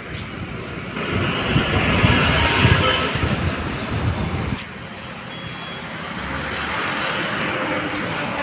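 Road traffic passing close, a bus and a motor scooter among it, loudest about two to three seconds in. About halfway through the sound cuts off abruptly to a quieter, steady outdoor background.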